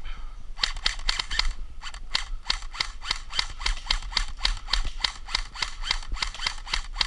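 Airsoft rifle firing rapid semi-automatic shots: a steady train of sharp clicks, about four to five a second, starting just over half a second in.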